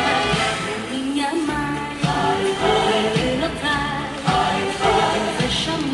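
Song with singing over a steady beat.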